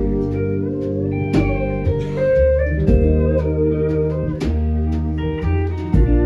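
Live instrumental band playing a slow tune: pedal steel guitar and keyboards holding sustained chords over upright bass notes and electric guitar, with a light drum or cymbal stroke about every second and a half.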